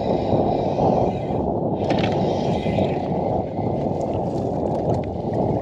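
Wind buffeting the microphone over choppy water lapping at a kayak hull: a steady low rumble, with a few faint clicks about two seconds in.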